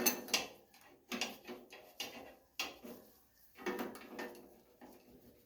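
Adjustable wrench clanking on the steering-wheel nut of a 1953 Ford Golden Jubilee tractor as it is fitted and turned to tighten the nut. The clanks are metallic and come at an irregular pace, fading near the end.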